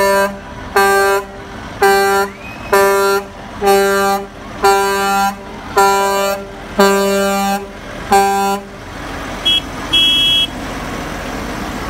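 Semi truck's air horn blown in eight short blasts, about one a second, each a steady low single-pitched blare. Near the end come two brief high-pitched beeps.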